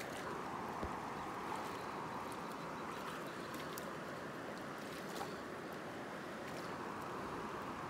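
Steady rushing of a shallow river flowing around rocks, with a couple of faint clicks.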